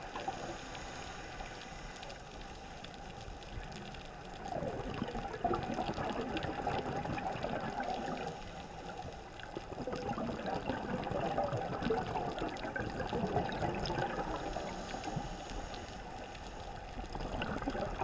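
Underwater sound of a scuba diver breathing: bubbly, crackling rushes of exhaled air from the regulator, swelling in long surges with a short lull about halfway through.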